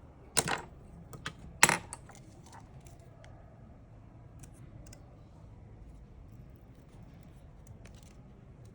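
Small hard tools or parts clinking on a repair bench during phone repair work: two sharp knocks about half a second and just under two seconds in, with a few lighter clicks between and faint scattered ticks afterwards.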